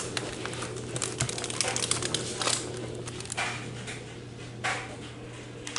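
Quick light clicks and taps of keys on a tablet's keyboard dock, thickest about a second in and thinning out after, with a few soft rustles and a steady low hum.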